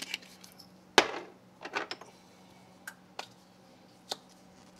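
Spice jars being handled and set down: one sharp knock with a short ring about a second in, then a few lighter clinks and taps.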